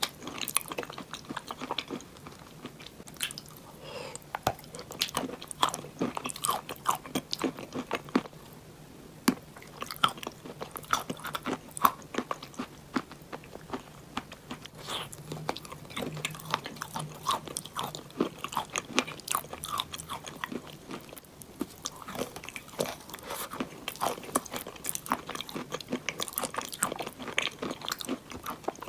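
Close-miked biting and chewing of pressed chalk bowls: dense, crisp cracks and crunches, with brief lulls between bites.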